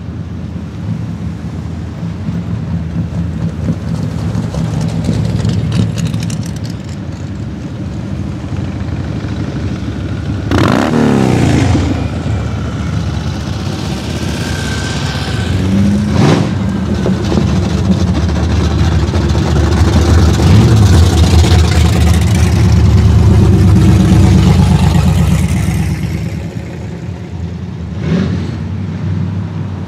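A line of classic cars and hot rods driving slowly past, their engines rumbling one after another. One passes loudly about ten seconds in with a quick fall in pitch, and the loudest, steadiest engine sound comes a little past the middle.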